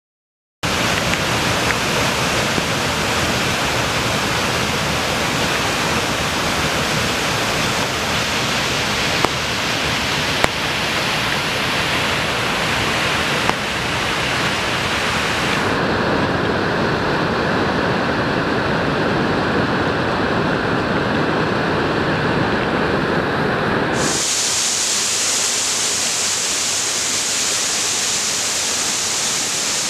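Rain-swollen mountain creek rushing over boulders, a steady loud wash of white water that starts abruptly and changes tone twice, about halfway through and again about three-quarters of the way in.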